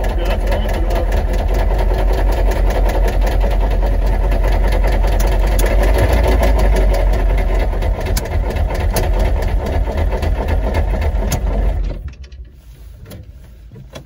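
Humvee's V8 diesel engine running with a rapid, hard knocking: rod knock from a bottom end run with no oil pressure. The engine shuts off about twelve seconds in.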